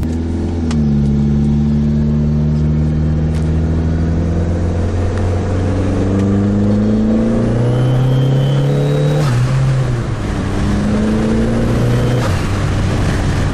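PT Cruiser GT's turbocharged 2.4-litre four-cylinder engine accelerating under boost, heard from inside the cabin. Its pitch climbs steadily for about nine seconds, drops at an upshift, climbs again, and drops with a second upshift near the end.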